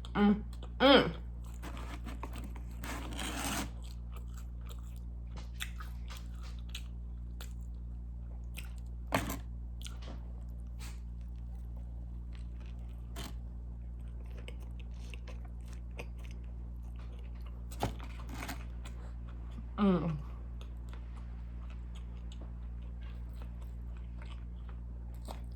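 A person chewing and biting fast food close to the microphone, with occasional crunches and small mouth clicks. There is a rustle about three seconds in and a short low vocal sound that falls in pitch about twenty seconds in, over a steady low hum.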